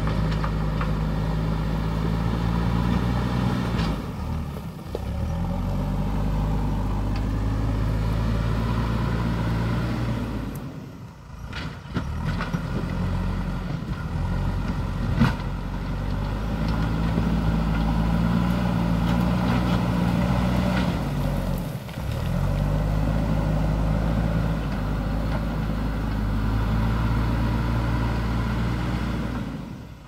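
JCB backhoe loader's diesel engine working under load as the front bucket pushes spoil along the road, the revs rising and falling in slow cycles and dropping briefly about four, eleven and twenty-two seconds in. A single sharp knock about fifteen seconds in.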